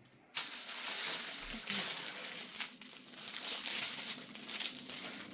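Small plastic bags of diamond painting drills being handled, crinkling continuously. The crinkling starts suddenly about a third of a second in.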